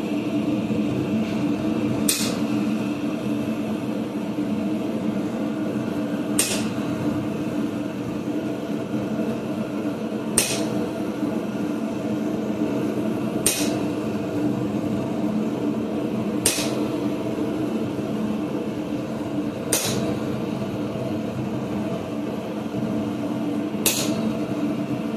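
Hammer blows on a hot chisel forged from a railroad spike, driving it through heated mild steel: seven separate strikes, about three to four seconds apart, over a steady drone.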